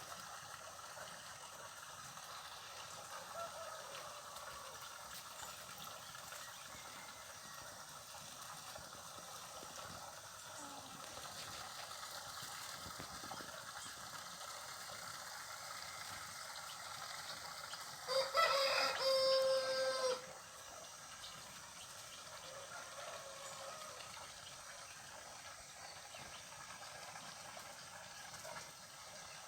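A rooster crows once, a single call of about two seconds a little past the middle, over a faint steady outdoor background.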